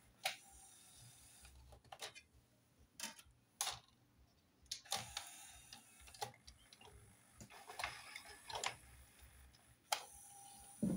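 Scattered light clicks and knocks of plastic parts on an opened Denon CD changer mechanism being handled by hand, some with a brief ring, at uneven intervals.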